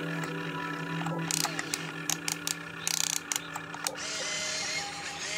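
Radio-controlled excavator's electric motors and gearing running with a steady pitched hum as the boom and bucket move, with a run of sharp clicks and rattles in the middle and a shift in the motor's pitch near the end.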